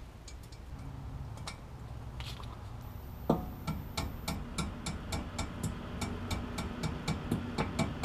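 Ratchet wrench clicking on a front-wheel spindle's castle nut. The clicks start sharply a little over three seconds in, then keep an even rhythm of about three to four a second.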